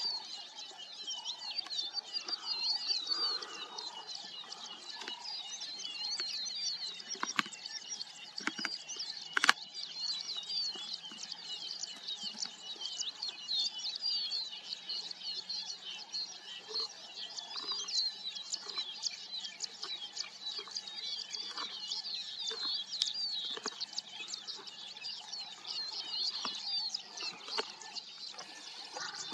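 Dense chorus of small birds chirping and twittering on and on, with a few sharp clicks and one louder crack about nine and a half seconds in.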